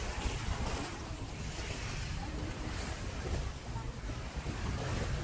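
Wind buffeting a phone microphone: a steady, gusty rushing with a deep rumble.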